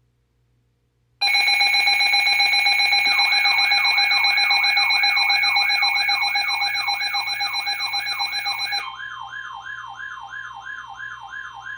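Emergency alert alarm tones. A loud steady multi-tone alert signal starts abruptly about a second in. A fast warbling siren-like alarm joins it a couple of seconds later. The steady tone cuts off about nine seconds in, leaving the warbling alarms sounding, a little quieter.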